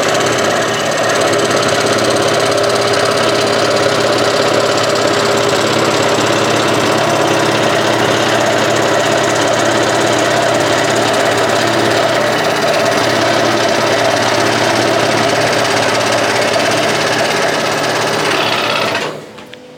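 Large scroll saw running steadily, its reciprocating blade cutting through a wooden panel. The sound cuts off suddenly near the end.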